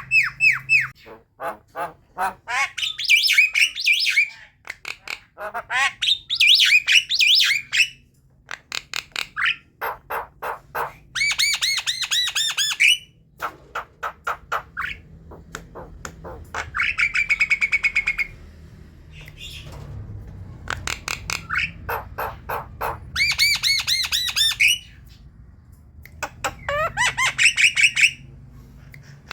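Javan myna chattering: a varied song of harsh squawks, rattling runs of rapid notes and whistled notes, in phrases a second or two long with short pauses between. It is the kind of chatter played as a lure for young mynas to learn from.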